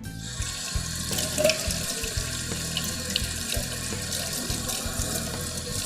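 Tap water running steadily into a kitchen sink while bell peppers and onions are washed under it.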